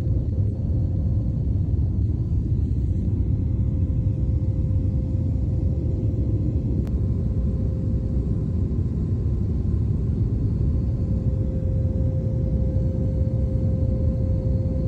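Airliner cabin noise in flight: a loud, steady low rumble with a steady hum running through it.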